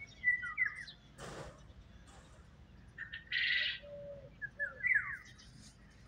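Caged birds calling in an aviary: short chirping calls with quick falling notes near the start and again near the end, and a longer harsh, rasping call about halfway through.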